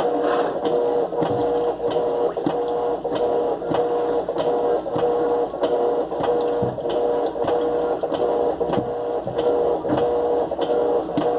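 Electrolux LTE12 top-loading washing machine agitating a load of clothes. Its motor gives a steady hum, with a regular rhythmic beat of a few strokes a second from the agitator working the wash.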